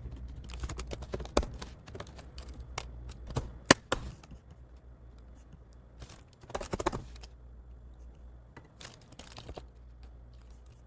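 Computer keyboard typing in short irregular bursts of key clicks, with one sharper, louder click a little under four seconds in.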